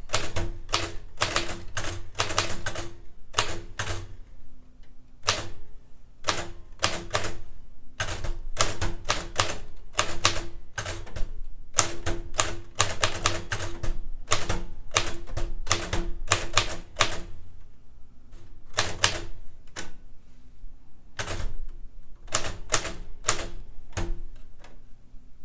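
1947 Royal Quiet DeLuxe manual typewriter being typed on by two-finger pecking: sharp typebar strikes in an uneven rhythm, in quick runs broken by short pauses.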